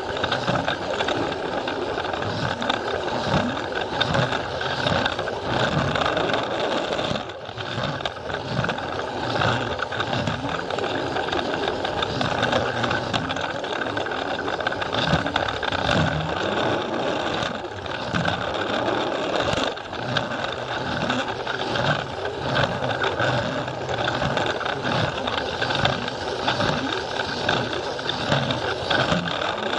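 Plarail battery-powered toy train running: its small motor and gearbox whir steadily, with rapid irregular clicking and rattling as the wheels run over the plastic track.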